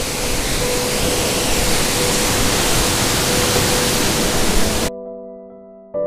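Steady rushing roar of a roughly seven-metre waterfall pouring into its pool. It cuts off suddenly near the end and gives way to soft piano music.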